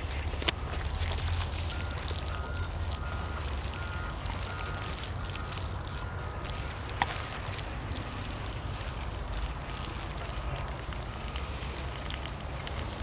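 Marinated beef short ribs (LA galbi) sizzling steadily on a hot cauldron lid, over a low rumble. Two sharp clicks come through, about half a second and seven seconds in.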